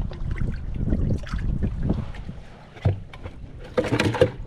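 Wind rumbling on the microphone, with scattered knocks and rustles of handling on the boat deck and a louder cluster of knocks about four seconds in.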